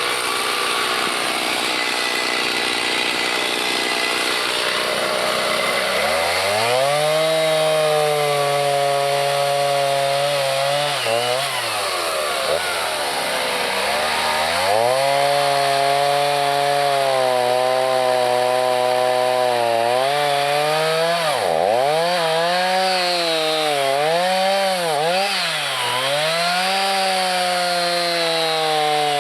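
Petrol chainsaw running hard through wood. The engine note sags and recovers again and again, falling almost to idle a couple of times before revving back up.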